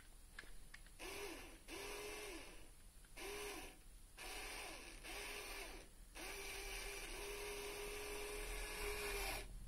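LEGO Power Functions electric motor and its plastic gear train whirring in a series of short runs of about half a second to a second, then one longer run of about three seconds near the end, each starting and stopping abruptly as it is switched on and off by remote control.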